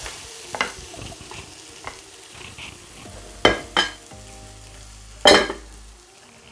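Diced onions and bell peppers sizzling softly in oil in a pot, stirred briefly with a wooden spoon. Three sharp knocks come about three and a half, four and five and a half seconds in, the last the loudest.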